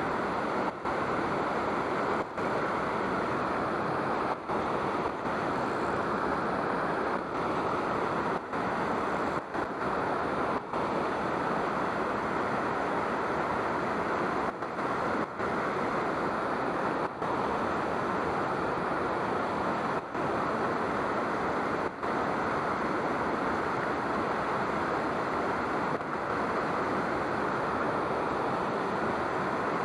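Steady rush of flowing water, unbroken except for several very short dropouts.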